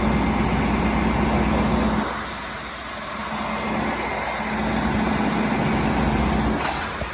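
Steady city street traffic noise: a low vehicle engine hum that fades about two seconds in, swells back and fades again, with a short click near the end.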